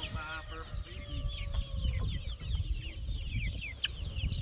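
Chickens clucking, with many quick high chirps running on throughout and one drawn-out call in the first two seconds.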